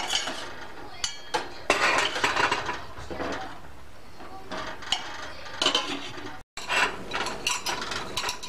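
Steel spoon clinking and scraping against a small steel pot of sugar syrup as fried gulab jamuns are put in, in irregular metallic clatters with a short rattling run about two seconds in. The sound drops out for an instant a little past six seconds.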